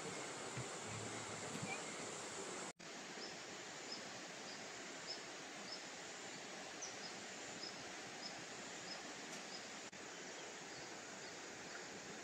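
Steady rural outdoor hiss with a small creature's short high chirp repeating at an even pace, about three every two seconds, from about four seconds in. The sound drops out briefly just under three seconds in.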